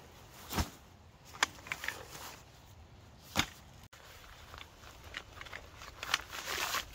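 Tent gear being handled: a nylon stuff sack holding tent poles is rubbed and rustled, with a few sharp knocks in the first half and a run of softer rustling and small clicks later on.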